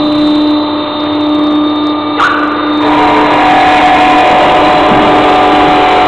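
Automatic blow moulding machine running: a steady mechanical hum with several held tones and a sharp clack about two seconds in. About a second later the hum shifts abruptly to a louder, brighter mix.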